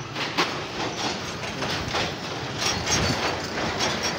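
Irregular clicks and clanks from the metal grating deck of a steel truss bridge, a few a second, over a steady background rumble.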